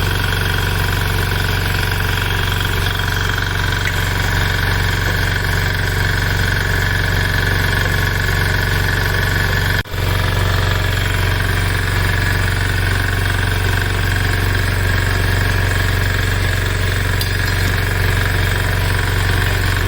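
A steady engine running without change, with a brief dropout about ten seconds in.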